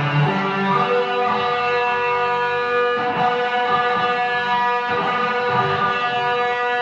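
Guitar chords struck and left to ring, changing to a new chord about three seconds in and again about five seconds in.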